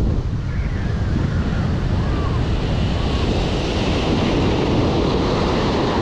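Ocean surf breaking and washing up a sandy beach, with wind rumbling on the microphone. The hiss of the wash swells about halfway through as a wave breaks and runs up the sand.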